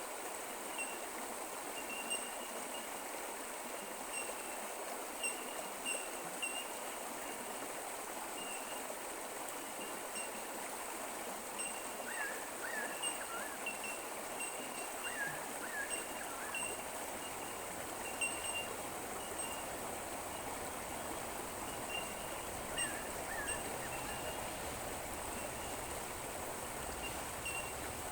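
A creek running steadily, with short high chirps repeating throughout and a few brief clusters of bird calls.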